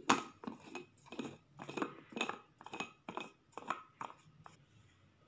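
Plastic blade base of a small mixie blender jar being screwed onto the glass jar by hand: a run of short scraping clicks from the threads, about three a second, the first the loudest.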